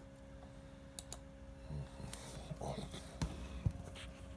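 Faint handling sounds of a small box held in the hand: a couple of soft clicks about a second in, then quiet rustling and a few light knocks, over a steady low hum.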